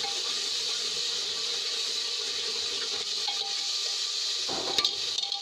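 Spice masala with a little water sizzling steadily in an aluminium pressure cooker as it is stirred. Near the end a metal ladle scrapes and clinks against the side of the pot.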